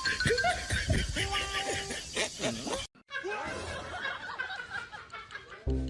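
People laughing and snickering in two stretches, broken by a sudden cut about halfway through; music starts near the end.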